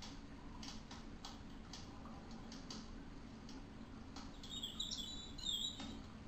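Coloured pencil scratching on paper in short, irregular strokes, with a bird chirping several high notes about two-thirds of the way in.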